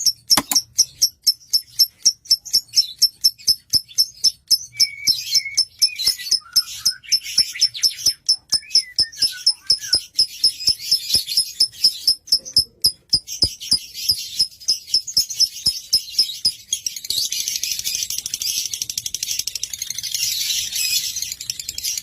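Lovebird singing: a fast string of sharp, high chirps, about three to four a second, with a few short sliding whistles among them. About seventeen seconds in, it turns into a dense, unbroken high chatter.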